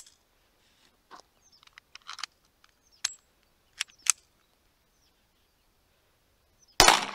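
A single .22 LR pistol shot, from a 1911 fitted with a GSG conversion kit, near the end, followed by a short echo. Before it, a sharp metallic click at the very start and a few quieter clicks and clacks as the pistol is handled and readied.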